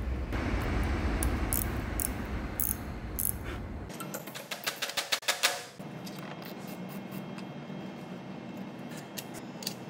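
Ball-peen hammer tapping a thin brass pad bolted onto a steel lathe-chuck hard jaw, bending it to the jaw's shape: about a dozen quick, light metallic taps over nearly two seconds, about halfway through. Before the taps come scattered clicks of the brass pads being handled.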